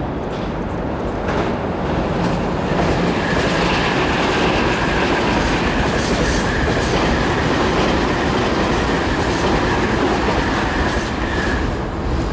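Electric commuter train running past on a steel truss viaduct, its wheels rumbling on the rails. A steady high whine rides over the rumble from about three seconds in until the last cars clear near the end.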